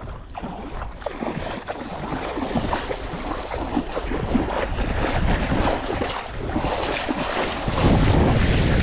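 Shallow seawater splashing and sloshing around a wading angler as a hooked barracuda is brought in to be landed. Wind rumbles on the microphone, heavier near the end.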